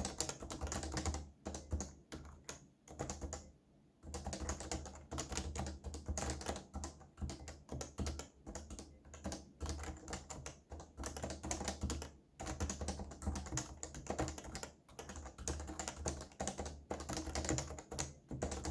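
Fast touch-typing on a computer keyboard: rapid key clicks in long runs, with short pauses about four seconds in and about twelve seconds in. The typing stops right at the end.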